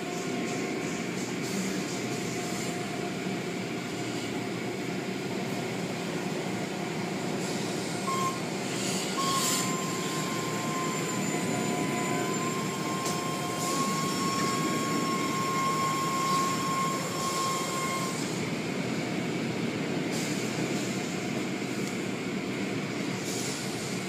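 Automatic car wash running: a steady rush of water spray and machinery, with a thin steady tone joining for about ten seconds midway.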